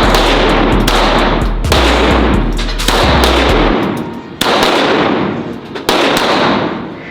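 Handgun shots at a shooting range, several in a row, each cracking sharply and then echoing away. The last two come about a second and a half apart.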